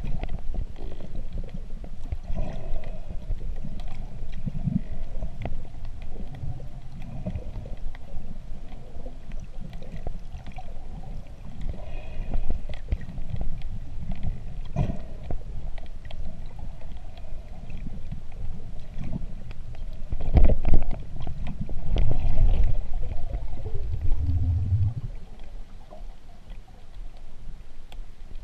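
Underwater sound picked up through a camera housing as a diver swims: a low, rumbling water noise with scattered clicks and knocks. It grows louder for a few seconds about twenty seconds in.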